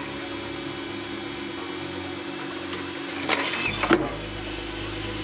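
A homemade can vending machine dispensing: its small electric motor hums steadily. About three seconds in, an aluminium drinks can rattles down and drops into the delivery tray, landing with a loud thump near four seconds in.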